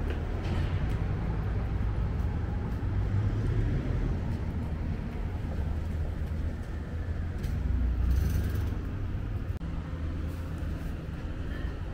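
Steady low rumble of road vehicles and buses at a bus interchange, with a brief louder hissing swell about eight seconds in.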